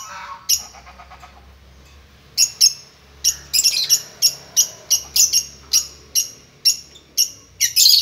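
Lovebirds chirping in shrill, short calls. One call comes early; from about two and a half seconds in, they follow in a quick run of about three a second.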